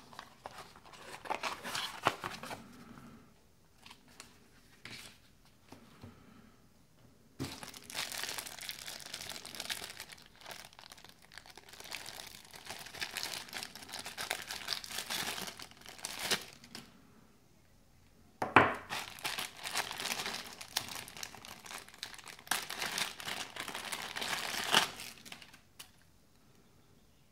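Clear plastic accessory bag crinkling and rustling as hands work it open and pull out a USB cable, in two long stretches, the second starting with a sudden loud crackle. Light paper and cardboard handling in the first few seconds.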